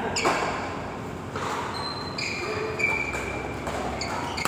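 Sports shoes squeaking on a synthetic badminton court mat, several short high squeaks, with a few scattered knocks over the hum of a large sports hall.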